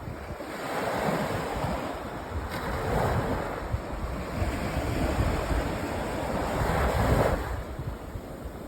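Sea waves washing onto a sandy beach, the surf swelling and fading about three times, with a low rumble of wind buffeting the microphone.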